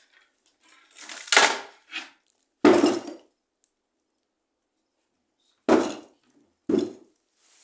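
Sharp knocks and cracks of old wood, about five spread over several seconds, the loudest around three seconds in.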